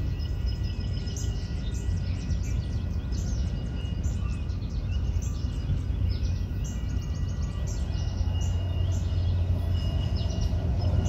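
Birds chirping over a steady low outdoor rumble; near the end a rumble builds as a vehicle approaches along the railway track.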